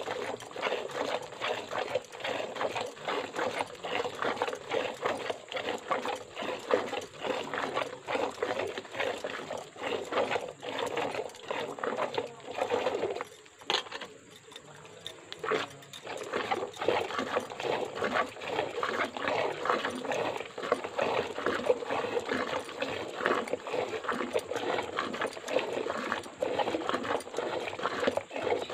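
Hand milking of a cow into a steel bucket: milk squirting from the teats in a quick, steady rhythm of jets, with a pause of about two seconds near the middle.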